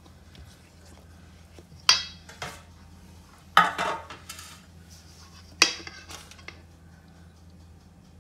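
Stainless steel mixing bowl clanking: three sharp knocks with a short metallic ring, followed by smaller taps, as brownie batter is scraped out of it with a silicone spatula.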